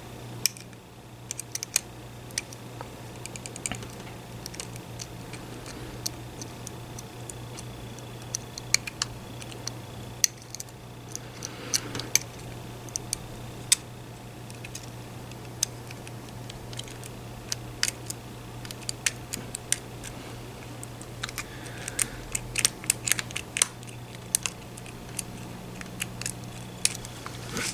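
Lock-picking tools clicking and scraping in a lock as it is picked: irregular small metallic ticks and clicks, over a steady low hum.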